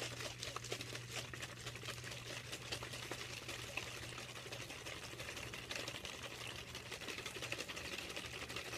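Hot water sloshing and splashing inside a capped plastic water bottle as it is shaken hard, a fast, continuous rattling splash, over a low steady hum.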